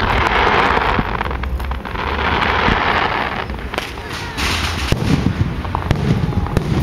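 Aerial fireworks shells bursting overhead, with sharp bangs throughout and two stretches of dense crackling, one in the first second and one from about two to three and a half seconds in.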